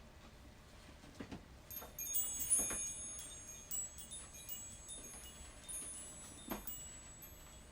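Chimes struck softly: a cluster of high, bright ringing tones starts a couple of seconds in and fades slowly, with a few soft knocks.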